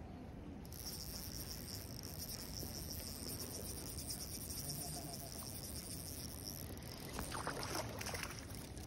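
Spinning reel cranked steadily, its fast fine ticking whirr as line is wound in on a hooked trout. Near the end, splashes as the trout thrashes at the surface and is scooped into the landing net.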